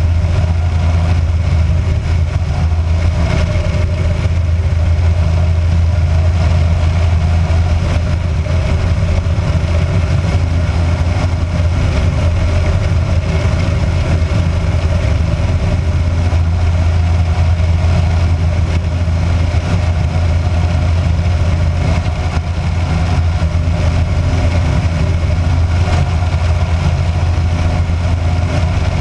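Kitfox light aircraft's engine and propeller droning steadily in flight, heard from a camera outside the cabin with wind rushing past. The pitch and level hold constant, with no change in power.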